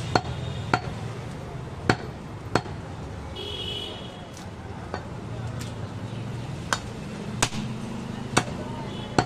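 A long, heavy butcher's knife chopping goat meat on a wooden log chopping block: about nine sharp chops at uneven intervals.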